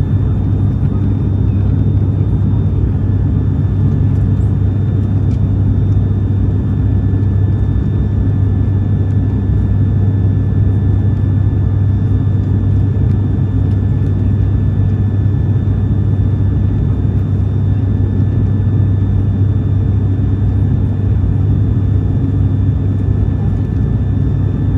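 Cabin noise of an ATR 72-600 turboprop airliner in flight: the steady low drone of its Pratt & Whitney PW127 engines and propellers, under an even rush of air, with a faint steady high whine.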